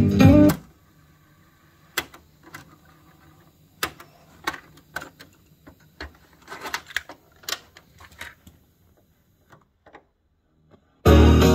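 Music from a Hitachi MS-W600E boombox cuts off at a press of a cassette deck key. Then come a string of sharp plastic clicks and clacks as the cassette deck keys, doors and front-panel controls are worked, over a faint low hum. Near the end the music comes back on loudly.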